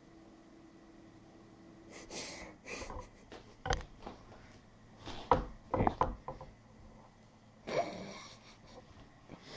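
Handling noise: scattered knocks, rubs and rustles while things are moved about, the loudest cluster about five to six seconds in. A steady low hum stops about two and a half seconds in.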